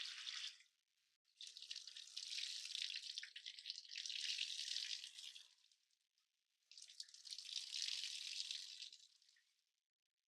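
Water running and splashing in separate bursts: one stops about half a second in, a longer one runs from about a second and a half in to about six seconds, and another starts about seven seconds in and fades out near the end.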